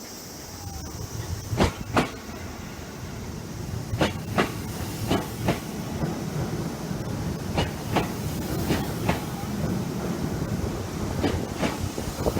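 Electric train running slowly, its wheels clacking over rail joints in pairs of clicks every two to three seconds over a low running rumble that builds about a second in. The slow beat reflects slow running under a strong-wind speed restriction.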